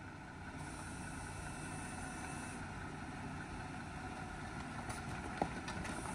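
Jeep engine running at a low, steady idle as the Jeep crawls slowly down a steep dirt drop, with a single light knock near the end.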